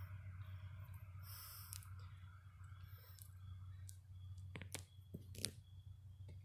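Faint sharp clicks, a few of them scattered through the second half, over a steady low hum.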